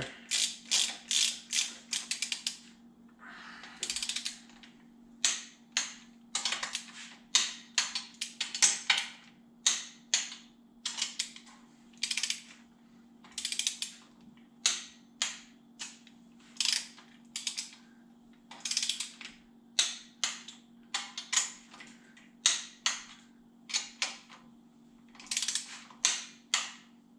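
A ratchet wrench clicking in short runs, about one to two strokes a second, as nuts are run down on an air-cooled VW engine's cylinder head. A steady low hum sits underneath.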